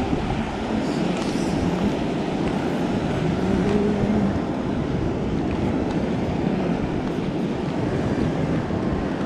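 Steady rushing of surf breaking on a sandy beach, mixed with wind on the microphone.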